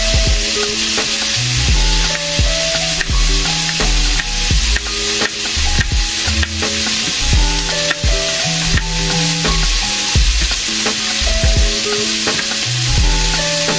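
Thin strips of steak sizzling steadily in olive oil in a frying pan, under background music with a heavy bass line.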